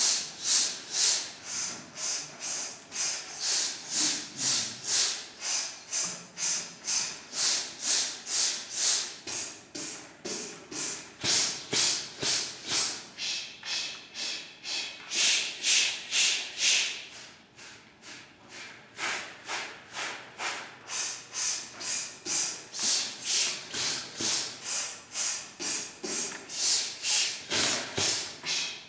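A chorus of men hissing together in short, sharp pulses on the breath, about two a second, a breath-support warm-up. The pulses stop for a moment a little past halfway, then start again.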